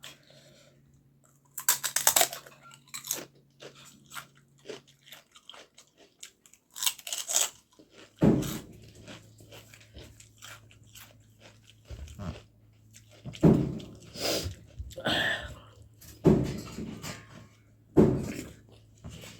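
Close-up eating sounds: a few crisp crunching bites, about two seconds in and again around seven seconds, then softer chewing and mouth noises.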